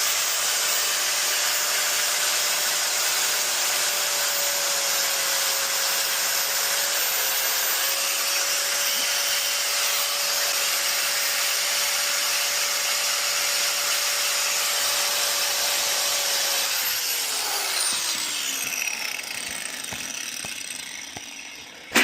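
Power grinder running steadily with a high whine, grinding down rubber. About 17 seconds in it is let off and spins down, the whine falling in pitch as the noise fades away.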